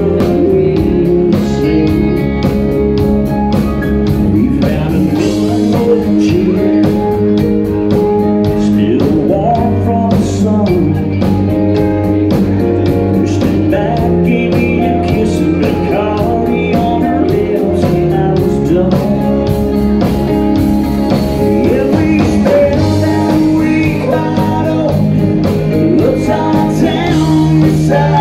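A live rock band playing loudly: a man sings over electric guitar, bass guitar and a drum kit.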